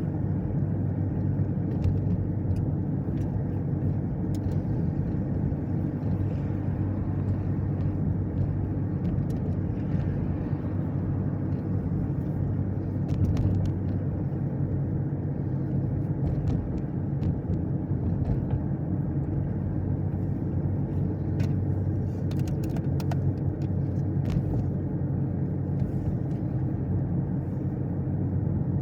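Steady low road and engine rumble of a 2010 Chevrolet Equinox being driven at a constant pace.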